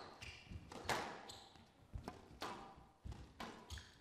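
Squash rally: the ball cracks off rackets and the court walls in about five sharp hits, with short high squeaks of the players' shoes on the court floor between them.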